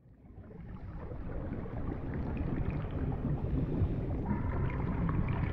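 Ocean water ambience: a low, rumbling wash of water noise that fades in over the first couple of seconds and then holds steady, with faint held tones in its second half.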